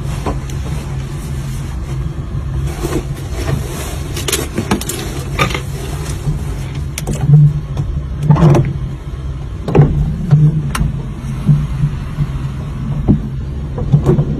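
Steady low machine hum inside the Titan submersible's cabin underwater, with scattered knocks and clicks through it.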